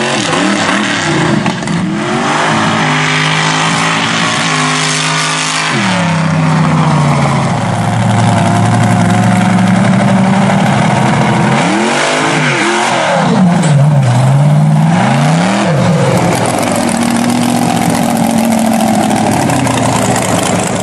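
Mega mud truck's engine revving, its pitch climbing and falling again and again as it pulls across the dirt, with several quick rev swings about halfway through.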